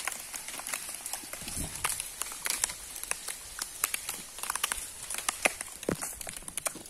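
Outdoor rural ambience: irregular small crackles and clicks throughout, over a steady high hiss.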